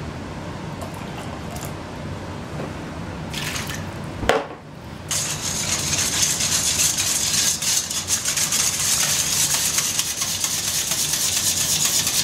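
Hot water poured from a glass jug into a stainless steel bowl of orange gelatin, then a single knock. After that, a wire whisk beats fast against the sides of the stainless steel bowl, dissolving the gelatin in the water.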